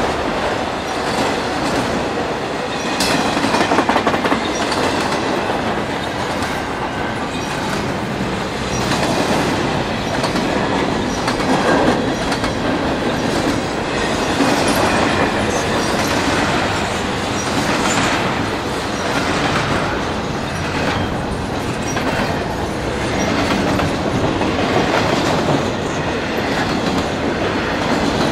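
Freight train cars rolling past: a steady rolling rumble and rattle of autorack and double-stack container cars, with steel wheels clicking over the rail joints again and again.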